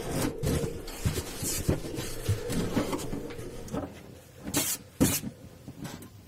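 Knocks and handling thumps as a violin case is handled, then two sharp clicks about half a second apart in the second half as its latches are snapped open and the lid is lifted.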